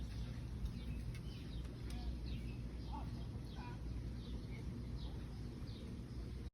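Small birds chirping: many short, falling chirps scattered throughout, over a steady low rumble.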